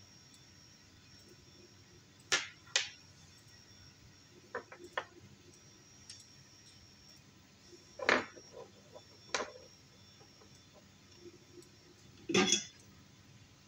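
Handling clicks and knocks of a small plastic lure body being pried apart and its halves set down on a wooden worktable: two sharp clicks about two seconds in, a pair of softer ticks, a louder knock with small ticks after it about eight seconds in, another about nine seconds in, and a short rattle near the end.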